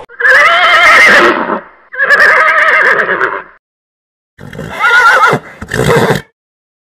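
Horse whinnying: several loud neighs with a quavering pitch, with a short silence midway.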